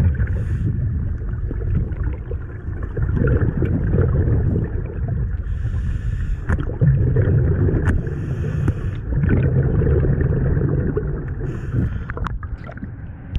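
Scuba diver breathing underwater through a regulator: a few short hissing inhalations and low, rumbling bubble exhalations that swell and fade.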